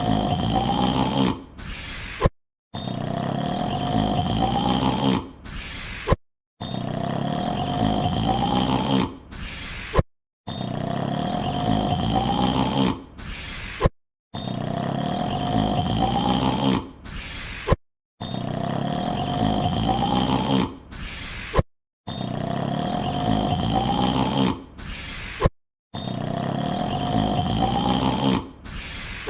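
A man's long, drawn-out yawn, rising in pitch, repeated as a loop about every four seconds with a brief silent cut between repeats.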